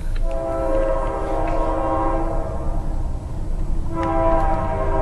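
Locomotive air horn sounding a chord in two long blasts. The first lasts about two and a half seconds; the second begins about four seconds in and is still sounding at the end. A steady low rumble runs underneath.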